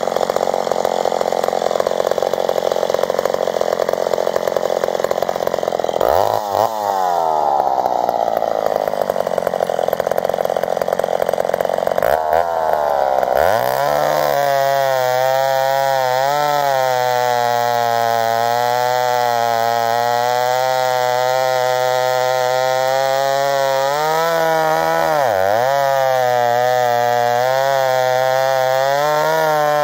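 A vintage McCulloch Super 55 two-stroke chainsaw, bored to 83 cc, bucking grand fir: it runs under load in the cut at first. About six seconds in its pitch climbs, and around twelve to fourteen seconds in it falls back. It then settles into a steady idle, with two brief dips in engine speed near the end.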